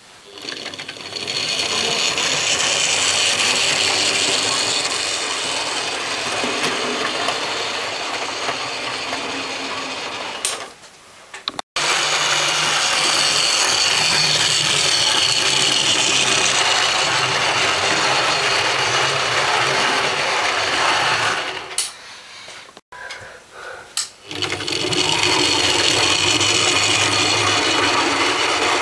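OO-gauge model J72 tank locomotive running along sectional track hauling coaches, its small electric motor and running gear giving a steady high mechanical whir. The whir drops away briefly twice.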